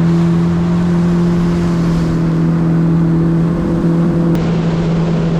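Yamaha FX Cruiser HO WaveRunner's 1.8-litre four-stroke engine running at a steady cruise: an even, unchanging drone over a steady hiss.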